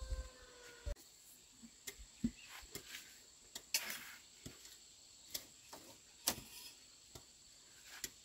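Metal cookware handled at a steaming pot: a short ringing from struck metal that is stopped just before a second in, then scattered light clinks and knocks of pot, lid and utensils. A steady high insect drone, like crickets, runs underneath.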